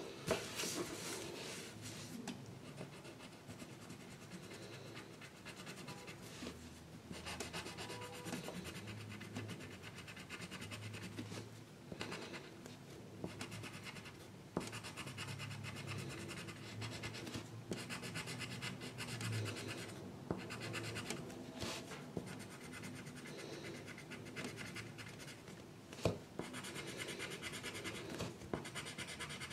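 Colored pencil scratching on paper in continuous drawing strokes, with a sharp tap just at the start and another near the end.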